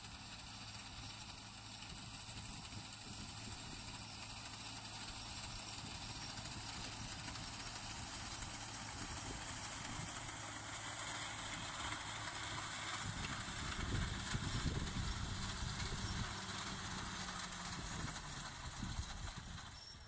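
Tractor engine running as it drives a front-mounted reaper through standing wheat. It grows louder as it comes closer and is loudest about two-thirds of the way in.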